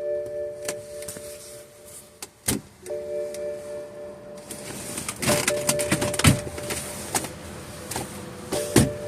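A steady electronic tone of a few pitches, cut off and resumed several times, amid sharp clicks and knocks from handling things inside the car.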